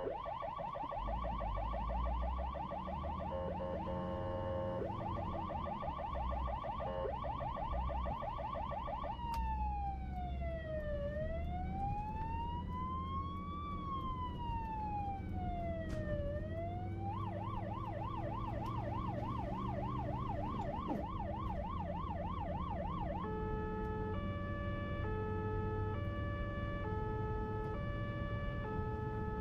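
Electronic ambulance siren cycling through its tones. A fast yelp runs for about nine seconds, then a slow wail falls, rises and falls again, then comes another fast yelp, and near the end a two-tone hi-lo alternation. A low vehicle rumble runs underneath.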